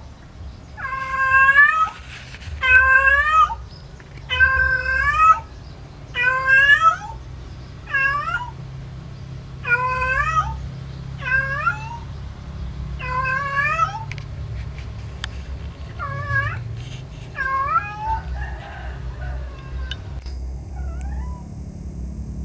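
Domestic cat calling for a mate: about ten drawn-out meows, each rising in pitch, repeated every one and a half to two seconds, stopping a few seconds before the end.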